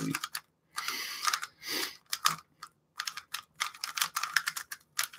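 Typing on a Cooler Master mechanical keyboard with brown switches: a couple of short swishing rustles, then a run of quick key clicks.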